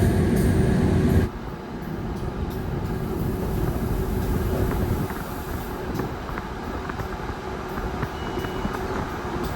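Passenger train running on the track, heard from on board: a steady low rumble with faint clicks of the wheels and carriage. The noise drops sharply about a second in and then runs on more quietly.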